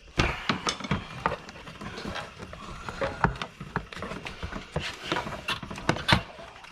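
A run of irregular clicks and light knocks, as plastic bumper trim pieces are handled and pried loose from their clips.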